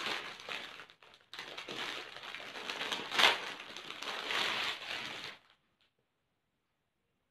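Plastic packaging crinkling and rustling as a parcel is opened by hand, with a brief pause about a second in. It cuts off abruptly a little after five seconds.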